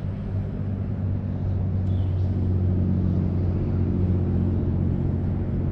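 An engine running with a steady low drone, growing a little louder about a second and a half in.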